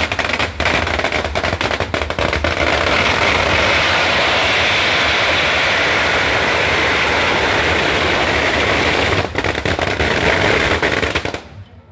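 A long string of firecrackers going off. Separate sharp bangs run together into a dense, unbroken crackle for several seconds, thin back into separate bangs, and stop suddenly about eleven seconds in.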